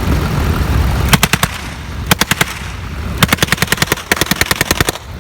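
Non-firing replica Browning machine gun, whose plumbed, electrically triggered noise system fires four short bursts of rapid bangs at about a dozen a second. The last two bursts are the longest. The car's engine runs underneath.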